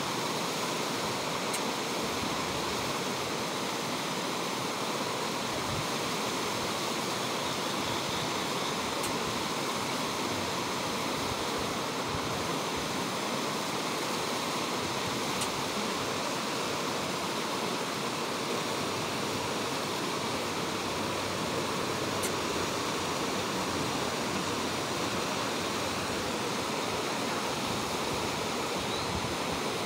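Steady rushing of flowing water, unchanging throughout.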